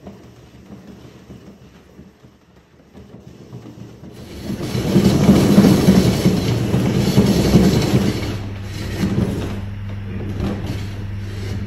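One Fast Cat exercise wheel spinning as a kitten runs in it. Its rolling noise rises sharply about four seconds in and stays loud for about four seconds, then eases to a quieter steady hum as the kitten stops.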